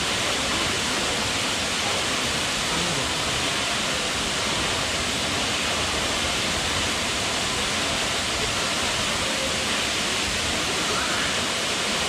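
Tall waterfall plunging into a plunge pool: a steady, unbroken rush of falling water.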